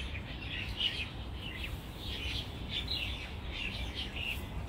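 Several small songbirds chirping over and over: many short, high chirps a few per second. Underneath is a low, steady rumble.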